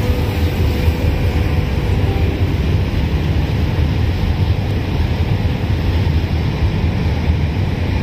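Wind buffeting the microphone on the deck of a moving car ferry, over a steady low rumble from the ship and the rush of water along its hull.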